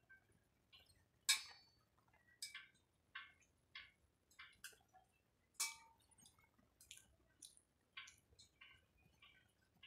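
Irregular light clinks and taps of kitchen utensils against metal dishware, about one or two a second, the sharpest about a second in and another just past the middle.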